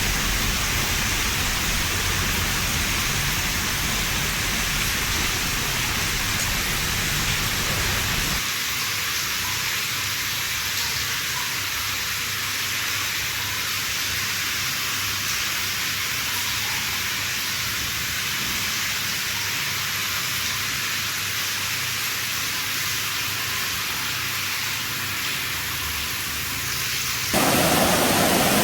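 Heavy tropical rain pouring down in a steady dense hiss, with a low rumble underneath for the first eight seconds or so that then stops abruptly. Near the end the sound jumps suddenly to a louder, fuller rush of water.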